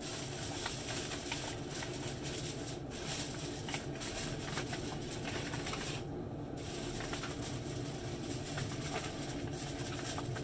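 Aluminium foil crinkling and rustling as it is pressed and folded over a foil pan, with a short pause about six seconds in.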